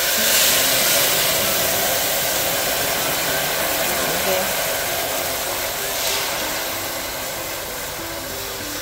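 Barbecue marinade sizzling on a preheated stainless steel wok around a rack of pork ribs. It is a steady loud hiss, strongest at the start and slowly fading.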